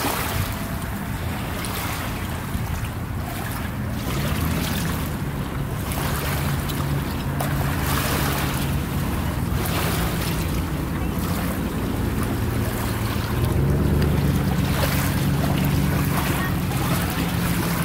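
Small waves lapping in shallow water, with wind buffeting the microphone. Under them runs the steady low hum of a distant motorboat engine, growing louder about three-quarters of the way through.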